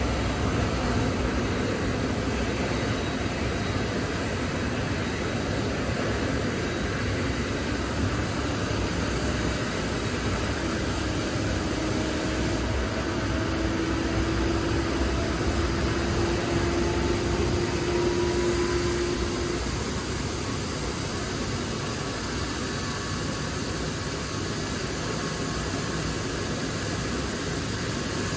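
Antonov An-124 Ruslan turbine noise during engine start-up on the ground: a steady rushing roar. From about eight seconds in, a whine slowly rises in pitch and fades out at about twenty seconds.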